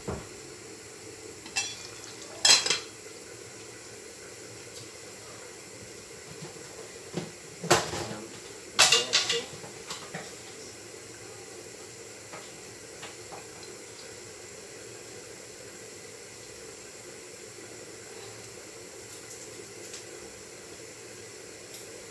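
Metal pots, lids and utensils clattering and clinking in a few sharp bursts, loudest about two and a half seconds in and again around eight to ten seconds in, with a few faint ticks after. Underneath runs a steady hiss from the lit gas hob.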